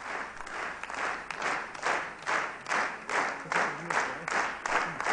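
Studio audience clapping together in a steady rhythm, about two and a half claps a second.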